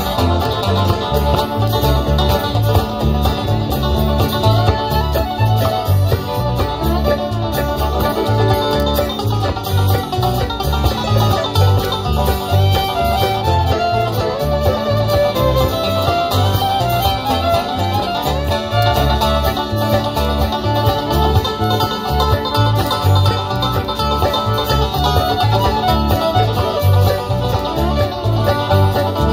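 Live bluegrass string band playing: banjo and acoustic guitar picking over mandolin and fiddle, with a steady electric bass beat underneath.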